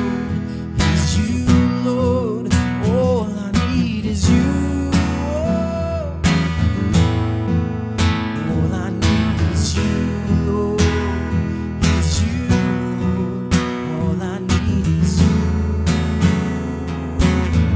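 Instrumental passage of a worship song: strummed acoustic guitar over a steady beat with full band backing, a melody line weaving above it in the first few seconds.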